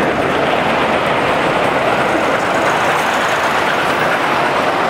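Garden-scale model train's coaches rolling past close by on the track: a steady rumble of wheels on rail.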